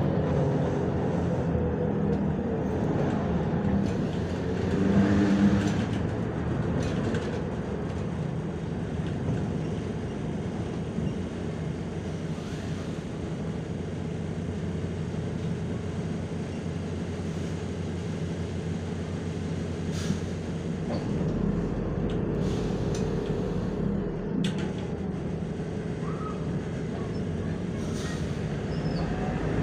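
A MAZ-105 articulated city bus on the move, heard from inside: its diesel engine runs steadily under road noise and swells briefly about five seconds in. A few sharp clicks or rattles come in the second half.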